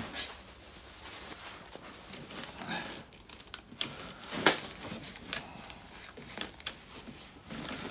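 Irwin Quick-Grip bar clamps being squeezed to press a rubber bush into an anti-roll bar drop link: scattered clicks and light handling noises, with one sharper click about four and a half seconds in.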